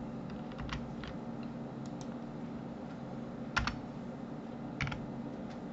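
A few separate computer keyboard key presses, some in quick pairs, over a faint steady hum. They are the shortcut keystrokes of 3D modelling work, such as Ctrl+Z and G.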